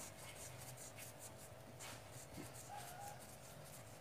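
Faint scratching and light ticks of a fishing rod, reel and line being handled, with a short hiss about halfway and a brief squeak a little later.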